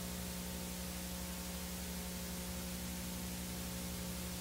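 Steady static hiss over a low electrical hum, with no music or other events.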